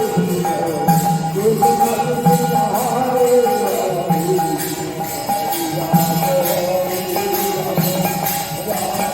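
Music with low drum strokes and jingling percussion over a held tone and a wandering melody line.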